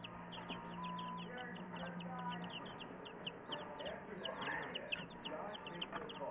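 A brood of young chicks peeping continuously: many short, downward-sliding peeps a second from several birds at once.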